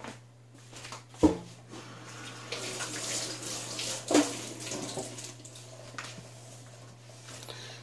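Electric countertop cooker running with a steady low hum, plus a hissing, water-like noise that swells in the middle. There are two brief knocks, about one second in and about four seconds in.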